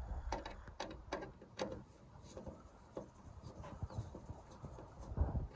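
Phillips screwdriver working a screw out of a plywood door panel: faint, irregular small clicks and scrapes of the tip in the screw head, with light knocks against the wood.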